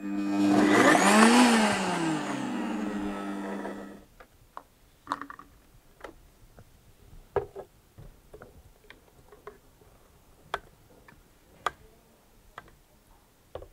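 Moulinex high-speed blender motor running for about four seconds as it purées artichoke hearts, garlic, parmesan and oil into a tapenade. Its pitch rises and then falls before the motor cuts off sharply. A few light knocks follow.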